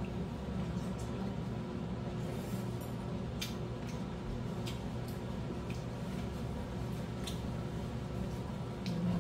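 Quiet dinner-table sounds: a steady low room hum with a few light, separate clicks of chopsticks and a spoon against dishes.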